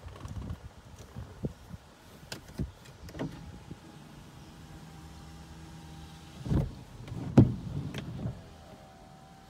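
A car's electric window motor whirring steadily for about two and a half seconds, ending in a thud, followed a second later by a sharp knock, the loudest sound. Small knocks and bumps come in the first few seconds.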